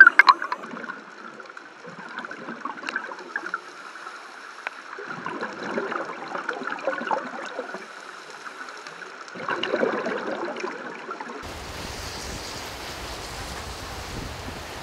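Scuba exhalation bubbles burbling underwater in irregular bursts, the strongest about five and ten seconds in. About eleven seconds in the sound cuts to a steady, even rush of shallow water with a low rumble.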